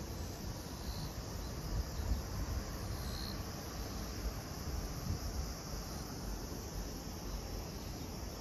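Steady high-pitched chorus of summer insects, with an uneven low rumble of wind on the microphone underneath.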